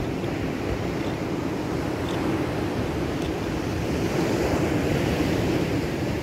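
Steady rush of wind and breaking surf, with wind buffeting the microphone; it swells a little about four seconds in.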